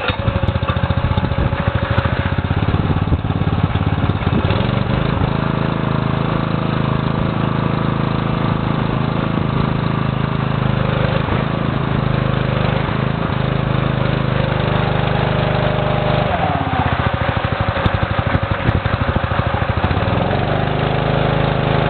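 Small gasoline engine of a Kato KF-50MG 50 mm engine water pump catching right at the start and running steadily, its speed shifting several times. In the second half the pump is primed and water gushes out of its outlet.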